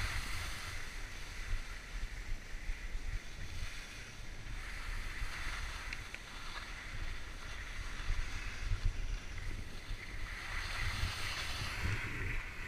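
Skis sliding over packed snow, a hiss that swells and fades with the turns, over a steady low rumble of wind buffeting the action camera's microphone.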